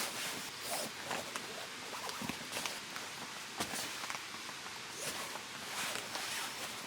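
Steady rushing hiss of a valley stream, with scattered sharp clicks and knocks over it.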